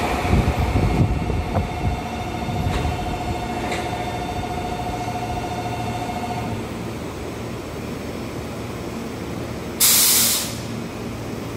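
Meitetsu 2200 series and 3100 series electric trains standing coupled. A low rumble fades over the first second or two, and a steady whine stops about six and a half seconds in. About ten seconds in comes a loud, short burst of compressed-air hiss from the trains' air system, lasting under a second.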